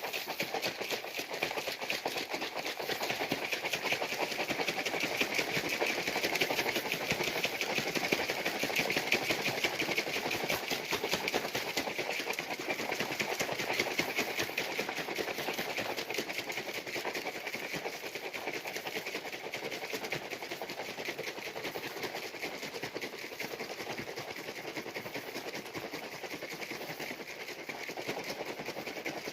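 Plastic shaker cup of water and G Fuel powder being shaken hard and fast, liquid sloshing and slapping inside in a rapid steady rhythm. The cup has no metal mixing ball, so there is no rattle, only the splashing liquid.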